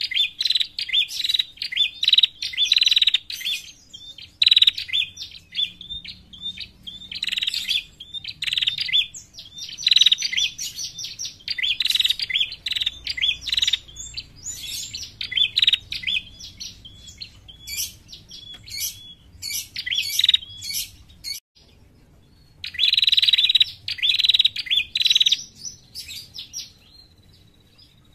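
Female ashy tailorbird (prenjak kepala merah) calling: bouts of rapid, sharp, high chattering notes broken by short pauses, a call used to lure other birds. The calls stop about three seconds before the end.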